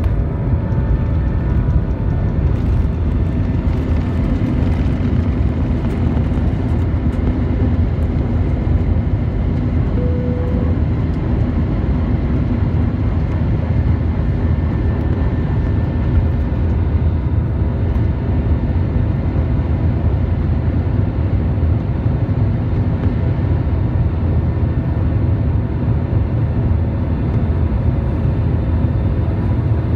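Airbus A320 jet engines at takeoff power, heard from the cabin over the wing: a loud, steady engine noise with a deep rumble as the airliner leaves the runway and climbs.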